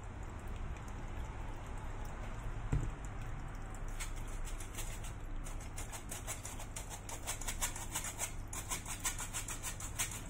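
Hand-held metal flour sifter being worked over a tray of cookies, its mesh and agitator making a fast rasping, clicking rattle as it sifts powdered sugar. The rasping begins about four seconds in and carries on; before that there is only a faint low hum.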